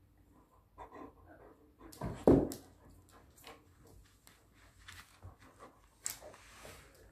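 American Akita panting and snuffling at close range during rough play. There is one loud short vocal burst from the dog about two seconds in, and quick light clicks and scuffles throughout.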